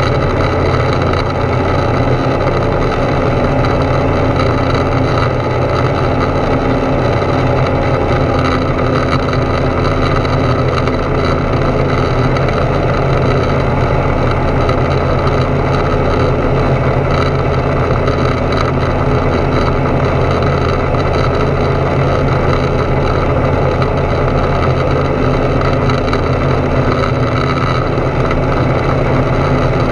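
Foxbat A22LS light aircraft's Rotax 912 flat-four engine and propeller running steadily in flight, heard from inside the cockpit.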